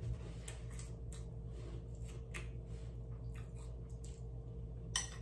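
A person eating cereal with milk from a bowl with a spoon: scattered short crunches and spoon clicks, with one sharper click near the end, over a steady low hum.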